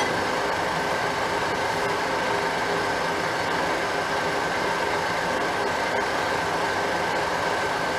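Metal lathe running steadily with a vented brake rotor spinning in its chuck: an even motor-and-gear hum with a faint high whine.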